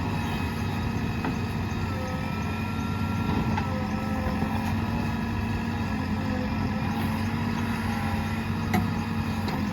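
Diesel engine of a JCB 3DX backhoe loader running steadily, with a faint whine above the engine note and a light tick near the end.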